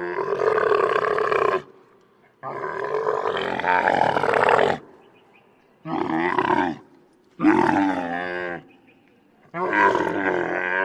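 A large animal calling five times in a row; each pitched call lasts one to two seconds and bends in pitch, with short gaps between.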